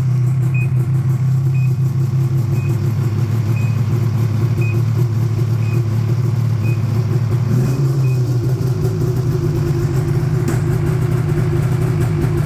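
Ski-Doo 800R Power TEK two-stroke twin snowmobile engine, freshly rebuilt, idling steadily just after start-up. Faint short electronic beeps sound about once a second for the first eight seconds.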